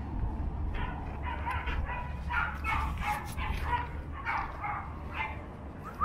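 Australian shepherds barking and yipping during rough play: a run of short, high barks.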